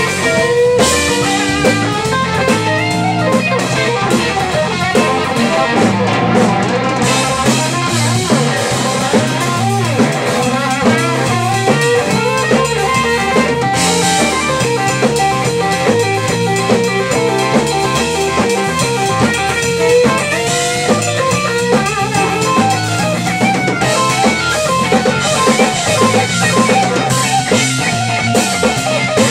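Live blues band: a Stratocaster-style electric guitar playing lead lines through a Longhorn tube amp, over electric bass and a drum kit.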